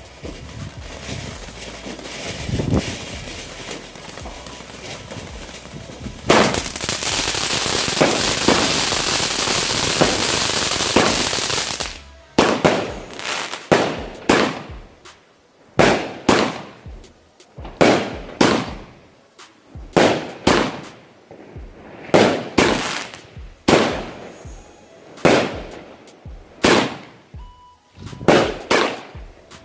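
'Blow Out' firework battery (cake) firing. A loud, dense rush of crackle from about six to twelve seconds, then a string of single shots bursting overhead, about one every second to second and a half, each bang fading away.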